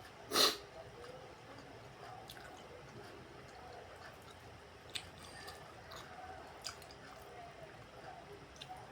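Close-up eating sounds: wet chewing of rice and peanut-sauced vegetables, with small mouth clicks and one loud short noisy burst about half a second in.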